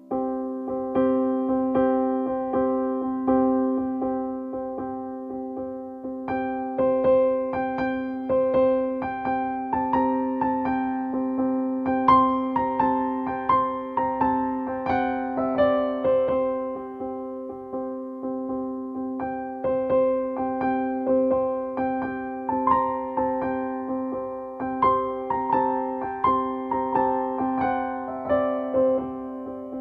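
Background music played on an electric piano or keyboard: a steady sustained chord with a quick run of notes picked out on top, several falling runs along the way.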